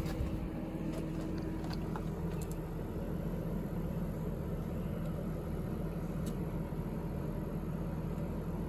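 Outdoor condenser unit of a Pioneer 12K ductless mini split running in cooling mode: a steady, quiet hum from its compressor and fan.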